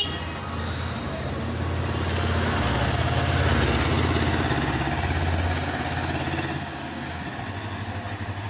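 Engine of a small Tata goods truck running as it passes close by, growing louder over the first few seconds and fading away after about six or seven seconds.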